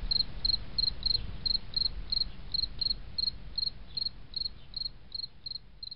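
Cricket chirping steadily at about three chirps a second over a faint low rumble, gradually fading out.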